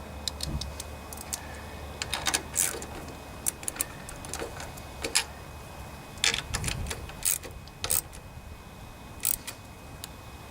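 Irregular metallic clicks and taps of hand tools and small engine parts being handled while the carburetor is fitted back onto a small engine.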